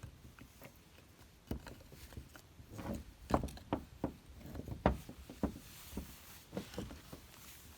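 A string of irregular knocks and clatters, like hard objects handled or set down, loudest in the middle.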